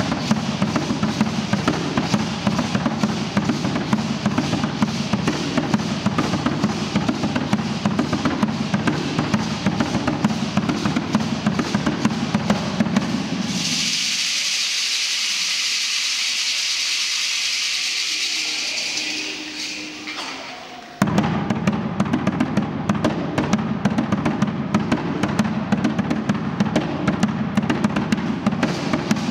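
Aztec dance drumming: a deep drum beaten in a fast, steady rhythm. About 13 seconds in the drum stops and a steady high rattling shake carries on alone for about six seconds, fading away. The drumming comes back in suddenly about 21 seconds in.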